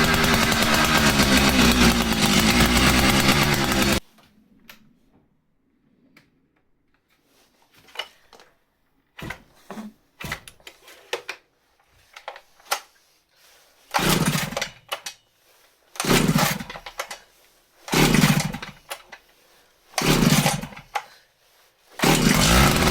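Vintage STIHL 042 chainsaw engine running steadily, then cutting off suddenly about four seconds in. A long quiet stretch with scattered clicks and knocks follows, then four short loud bursts about two seconds apart, and the steady loud running resumes near the end.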